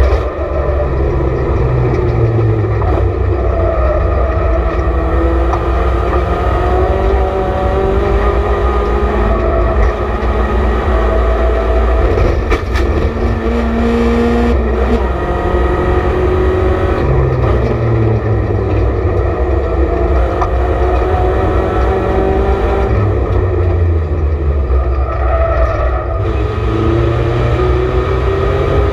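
BMW Compact race car engine heard from inside its stripped-out cabin at racing speed. The engine note climbs through the revs and drops back at each gear change, several times over, with steady road and tyre rumble underneath.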